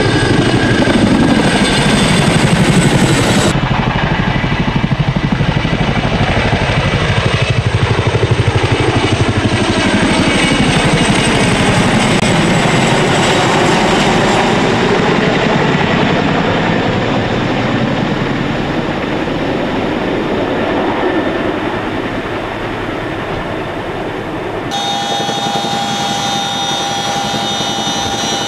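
Boeing CH-47 Chinook tandem-rotor helicopter flying close by, its rotors making a fast, steady chop over the engine noise, with the sound shifting slowly as it moves. Near the end it changes abruptly to a closer, steadier helicopter sound with a high turbine whine.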